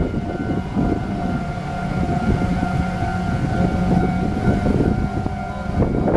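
Taiwan Railways electric commuter train passing over a level crossing: a steady rumble and clatter of wheels on rail, with the crossing's warning signal sounding steady tones over it.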